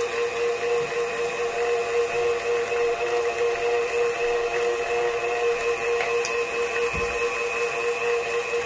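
KitchenAid Professional 5 stand mixer running a Kenome meat grinder attachment while it grinds raw pork. The motor gives a steady whine with several even overtones.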